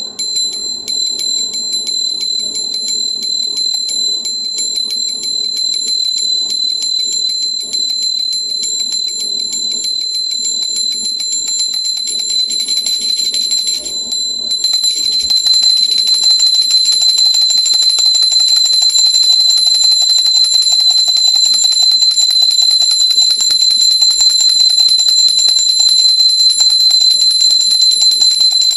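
Indian pooja bell (ghanti) rung continuously and rapidly, the clapper striking many times a second over a steady high ringing tone. It breaks off for a moment about halfway through, then carries on louder.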